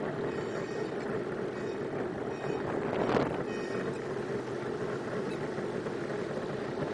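Motorboat moving slowly at low speed: the 175 hp Mercury Black Max two-stroke V6 outboard running steadily under the wash of water along the hull, with one louder splash about three seconds in.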